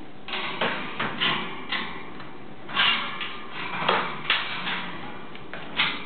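African grey parrot making a run of irregular sharp clicks and knocks, about a dozen in all, with uneven gaps between them.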